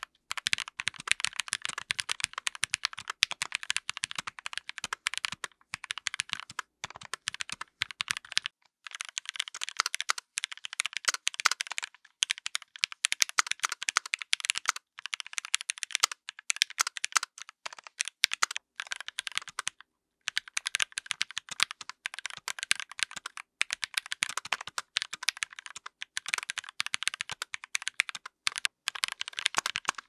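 Mechanical keyboard with Gateron Yellow linear switches and GMK Pulse keycaps being typed on quickly and continuously, a fast stream of key clacks. It is a plate sound test: the same board is heard first with a POM plate, then with a brass plate, and with a carbon fiber plate by the end. The typing stops briefly twice between takes, and the first take carries more low thock than the later ones.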